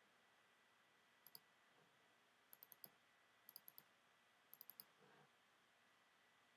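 Faint computer mouse clicks in quick groups of two to four, over near silence.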